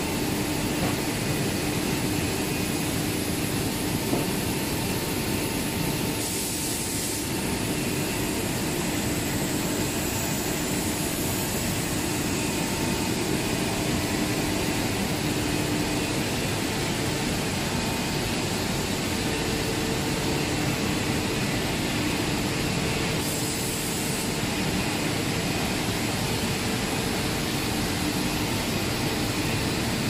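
Steady drone of a running PVC-insulated cable extrusion line and its factory machinery, even noise with a few steady hum tones underneath.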